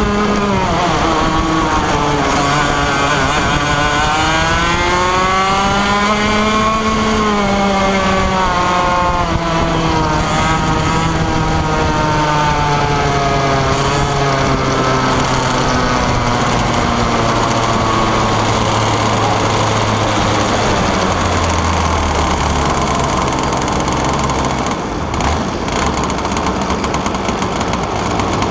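A 125cc two-stroke kart engine heard onboard. It winds down at first, rises and falls once, then slows steadily as the kart backs off and settles into a low, steady idle near the end.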